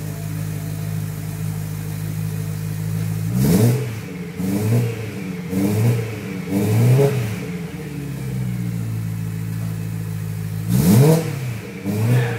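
BMW E92 M3's V8 running through an Akrapovic Evolution titanium exhaust. It idles steadily, then is revved in quick throttle blips: a sharp one about three and a half seconds in, three smaller ones after it, idle again, then another sharp blip near the end followed by a short one.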